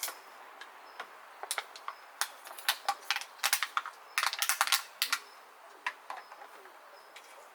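Irregular light clicks and taps coming in quick clusters, busiest in the middle and thinning out near the end, with faint short high chirps behind them.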